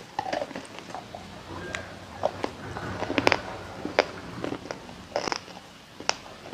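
Close-up mouth sounds of someone eating laddoos: wet smacks, clicks and chewing, irregular and scattered.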